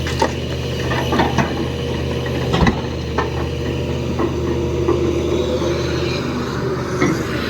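Heavy diesel engine of an excavator loading a tipper truck, running steadily, with a wavering hydraulic whine and several sharp knocks and clanks.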